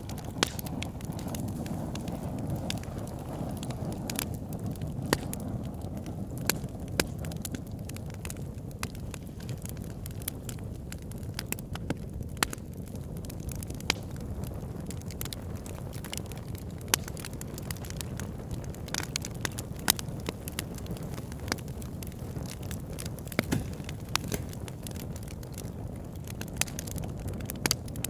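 Steady low rumbling noise with sharp crackles and pops scattered irregularly through it.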